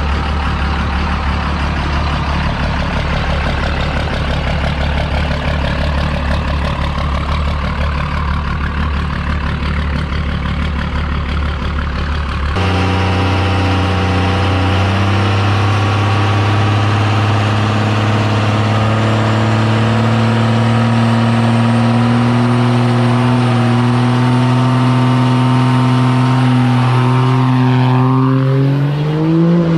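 Diesel engine of a first-generation Dodge Ram pickup running steadily. After a cut about twelve seconds in, its note is higher and creeps slowly upward, then near the end it revs up sharply as the truck launches under hard throttle.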